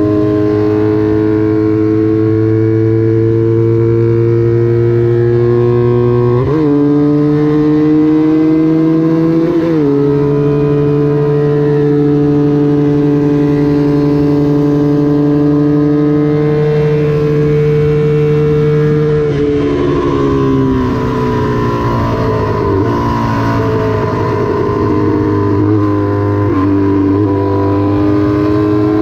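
Small-displacement vintage Honda twin racing motorcycle run hard at high revs, pitch climbing slowly with two quick upshifts within the first ten seconds. About two-thirds of the way through the revs fall away in a series of short downshift blips, then build again near the end.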